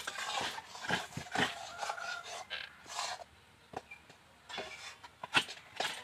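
Utensil scraping and stirring thick rice-flour dough against a kadai (wok) in uneven strokes, with a pause of about a second a little past the middle.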